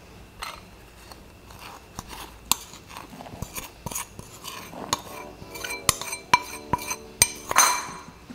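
Metal bowl and spatula clinking and tapping against a glass mixing bowl in a series of sharp clicks, as powdered sugar is tipped into creamed butter and stirred in.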